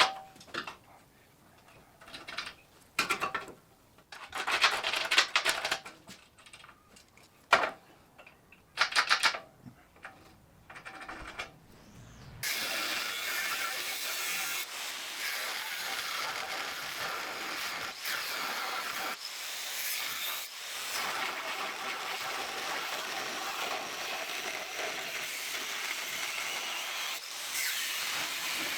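MIG welder on steel: several short tack welds, each a brief crackling hiss that starts and stops abruptly. About twelve seconds in, a long continuous weld bead begins, a steady sizzling hiss.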